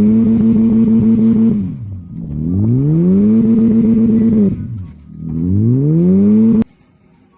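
A motor revving up, holding steady and winding down three times in a row, then cutting off abruptly near the end.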